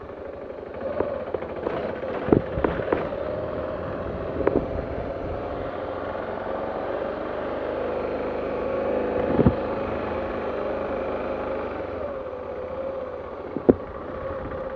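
Motorcycle engine running at low road speed, its note swelling a little partway through and easing off again. Several sharp knocks or clicks break in, the loudest near the end.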